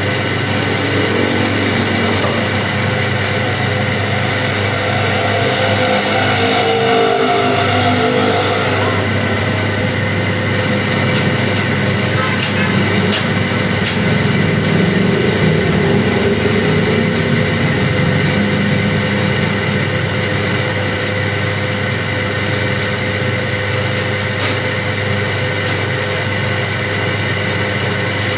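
A machine running at a steady speed, its hum holding several constant tones, with a few sharp clicks around the middle.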